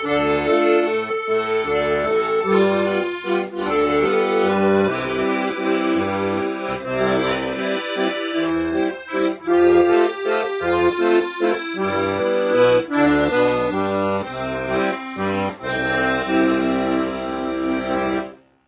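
Accordion playing a tune over a rhythmic left-hand bass-and-chord accompaniment, the bass notes taken in a varied order rather than the usual fixed pattern. The playing stops abruptly near the end.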